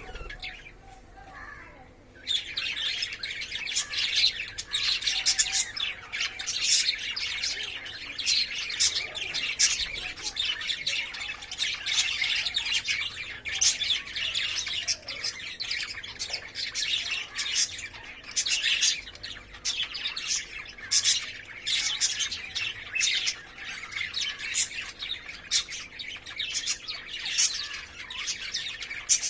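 Caged lovebirds chirping and squawking in a dense, rapid stream of short shrill calls, starting about two seconds in after a brief lull.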